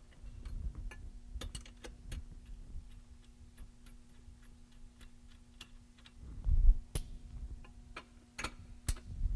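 Hand ratchet wrench clicking in a steady run of even ticks as the large strut bolts are worked loose. A heavier thump and a few sharp metal knocks come near the end.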